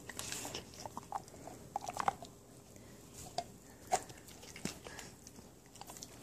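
A dog gnawing on an elk antler chew held in a hand: irregular hard clicks and scrapes of teeth on the antler.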